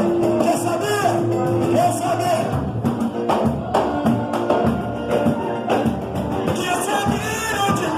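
Live band music: a voice singing a melody over percussion, with drum hits and a heavier bass coming in about two and a half seconds in.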